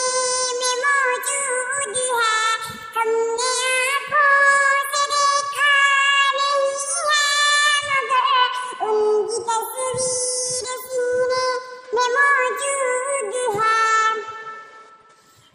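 A high, child-like, synthetic-sounding voice singing an Urdu naat (devotional song), with long held notes and sliding pitch. It fades down near the end.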